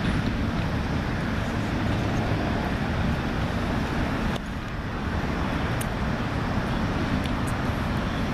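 Steady rumble of city traffic with outdoor background noise, dipping slightly about four seconds in.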